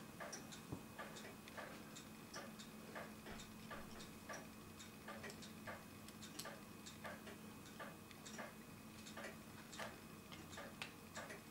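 Faint, regular ticking, about two to three ticks a second, over a low steady hum.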